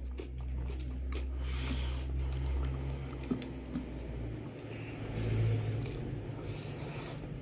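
A low, steady rumble comes in suddenly and runs on, swelling about five seconds in, over soft squishing of rice and meat worked by hand and chewing, with a few light clicks.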